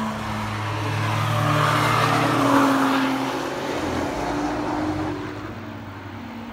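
A Porsche 911's flat-six and a Nissan GT-R's twin-turbo V6 passing at speed on the track. Their engines swell to a peak about two and a half seconds in, then fade as the cars pull away.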